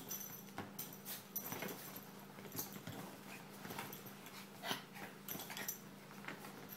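Two small dogs play-wrestling on a leather couch: scuffling, with quick scratches and knocks of paws and claws on the leather and the odd soft dog sound.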